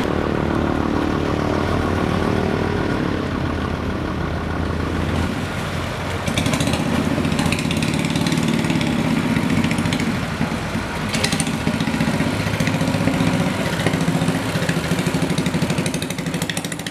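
Small wooden river ferry's engine running at the pier, growing louder and throbbing faster from about six seconds in as the boat gets under way.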